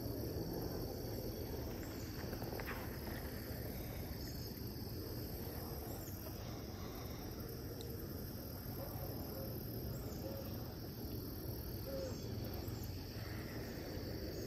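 Steady, high-pitched insect chorus shrilling without a break over a faint low rumble.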